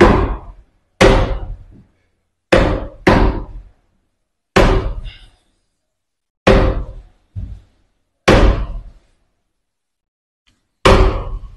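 Claw hammer striking a steel wood chisel to cut the latch-plate recess into the edge of a wooden door: about nine sharp knocks at uneven gaps, some in quick pairs, each ringing briefly through the door.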